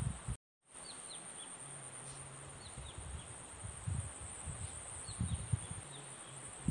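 Riverside ambience: a bird gives short, quick chirps that slide downward, repeated every second or so, over a steady high insect buzz and irregular low rumbling.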